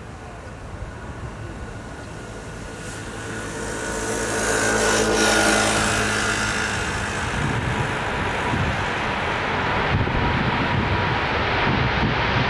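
Airbus A380's jet engines whining and running as the airliner rolls out on the runway just after touchdown. The sound swells about four seconds in, with a high whine and lower engine tones, then turns into a broad, steady roar as the jet passes close.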